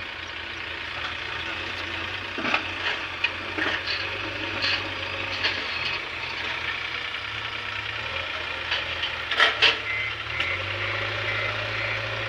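JCB 3DX backhoe loader's diesel engine running steadily while it clears a dirt track, with several sharp clanks, a pair of them about two-thirds of the way through. A repeated beeping alarm sounds near the end.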